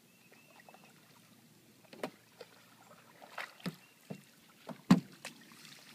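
Aluminium or fibreglass canoe being paddled in to the landing: a series of sharp knocks and bumps of paddle and hull, the loudest about five seconds in.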